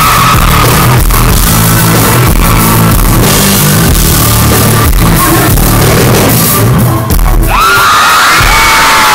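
Live band with acoustic and electric guitars playing loudly, recorded close to full level from within the crowd. Fans scream over it, with high screams rising near the end after a brief dip in the music.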